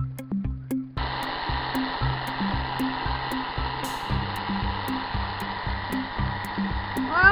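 Small electric motor of a Little Tikes STEM Jr. Tornado Tower switching on about a second in and running with a steady whir. Background music with a steady beat plays underneath.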